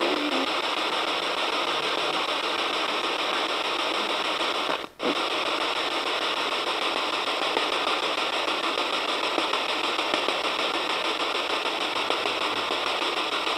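Steady radio static hiss from a ghost-hunting spirit box, cutting out briefly once about five seconds in.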